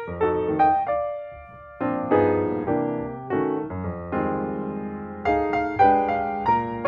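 Background piano music: a gentle melody of struck notes that ring and fade, with a short lull about a second in.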